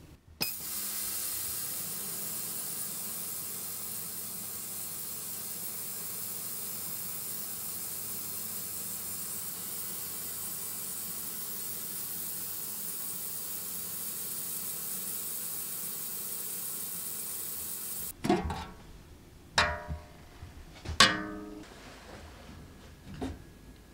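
Ultrasonic cleaner running with a steady high hiss from its bath, cutting off suddenly about 18 seconds in. After that come a few sharp ringing clanks and small splashes as the wire basket is handled in the stainless steel tank.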